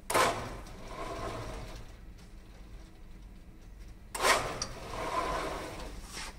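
Inverted-pendulum cart's drive motor whirring in two sudden bursts, about four seconds apart, each fading over a second or two. The controller is shuttling the cart to rebalance the pendulum after it is pushed off balance.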